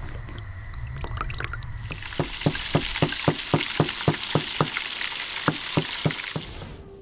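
Chicken deep-frying in hot oil: a loud sizzling hiss that sets in about two seconds in, over a low rumble, with regular pops about four times a second. It cuts off just before the end.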